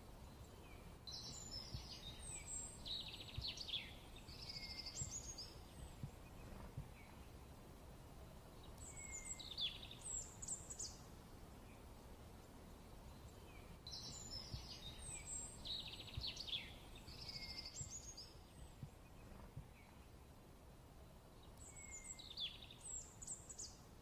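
A small songbird singing short, high, warbling phrases in bursts, with quiet gaps of a few seconds between them, over a faint low background hiss. The same run of phrases comes round twice.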